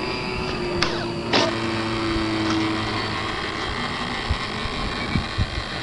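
Radio-control model airplane engine idling steadily, with two sharp clicks about a second in.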